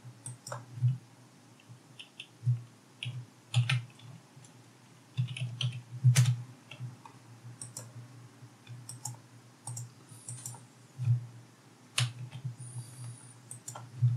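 Typing on a computer keyboard: scattered keystrokes, some single and some in short runs, with pauses between them.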